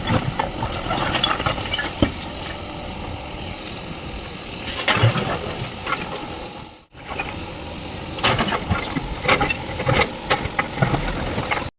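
Heavy diesel engine running, with irregular knocks and clatter. The sound drops out briefly a little past halfway and cuts off suddenly near the end.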